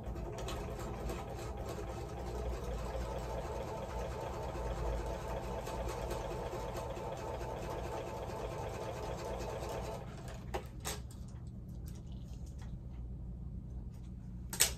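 Sewing machine running steadily as it stitches a seam through patchwork fabric, stopping about ten seconds in. A few sharp clicks follow, the loudest near the end.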